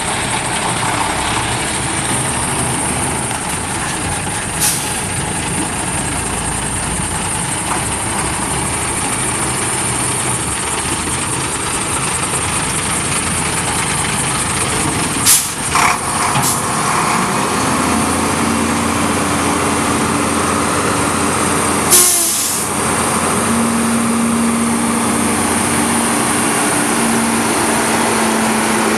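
A 1996 International 4900 dump truck's DT530 inline-six diesel running steadily, with a few short hisses of air from the truck's air brake system. About halfway through, a steady humming tone joins the engine sound.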